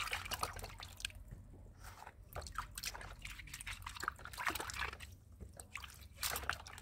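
Hands washing cucumbers in a plastic basin of water: irregular splashing, dripping and sloshing as the cucumbers are rubbed and turned in the water.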